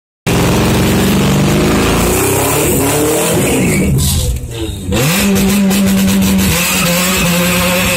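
Car engine revving hard at a drag-race start line. Its pitch climbs, drops back about four seconds in, then is held steady at high revs.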